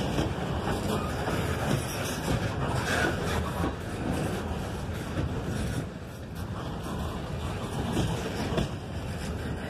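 Freight cars (loaded centerbeam lumber flatcars) rolling past, steel wheels rumbling and clacking on the rails as the end of the train goes by; the sound drops off a little about six seconds in once the last car has cleared.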